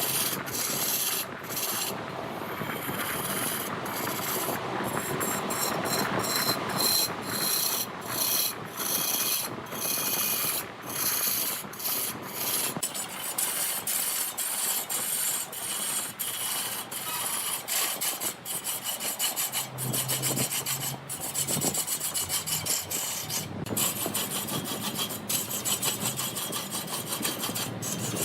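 A turning tool scraping into a redwood log as it spins on a large wood lathe: a continuous rasping cut with many brief breaks in the first half, closer and steadier in the second half.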